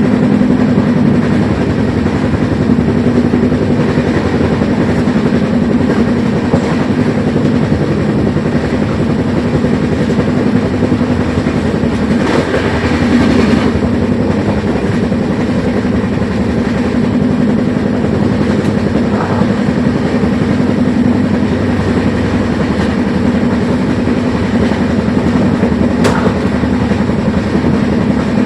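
A moving train: a steady, loud rumble of wheels running on rails, with a brief louder stretch about halfway through and a sharp click near the end.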